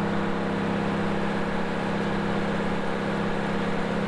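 A freshly rebuilt John Deere 4430 six-cylinder diesel engine running steadily on its first run after the rebuild.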